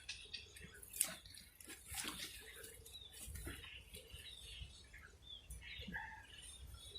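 Faint small birds chirping in short calls, with a few soft clicks and rustles.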